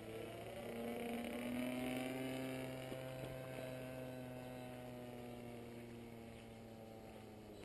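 Internal-combustion engine of a radio-controlled Ultimate aerobatic biplane, droning in flight overhead. It swells to its loudest about two seconds in, then slowly fades as its pitch eases slightly down.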